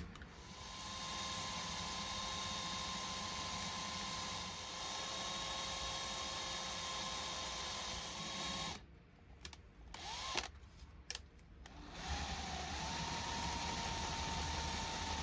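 Small power drill running with a steady whine, stopping about nine seconds in. After a short pause with a few clicks and a brief spin, it runs steadily again.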